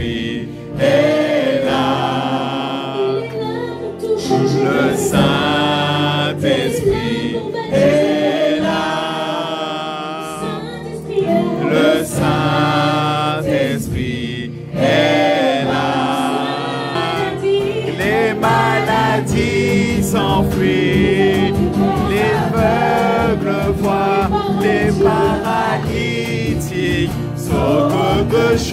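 Live worship singing: a woman's voice leads a slow French worship song into a microphone, with other voices joining in, over a steady held instrumental accompaniment.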